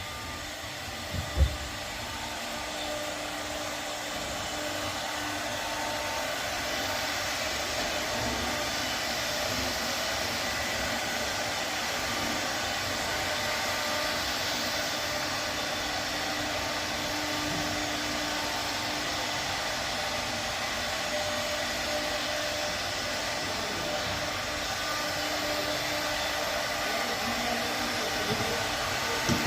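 A small motor whirring steadily with a rush of air, unbroken throughout, with faint steady hum tones; a single sharp knock a little over a second in.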